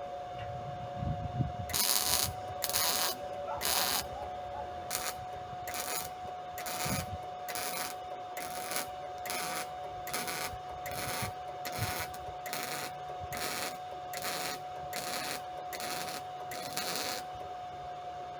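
Rhythmic hand scraping strokes on metal, about one and a half strokes a second, stopping about a second and a half before the end, over a steady faint high hum.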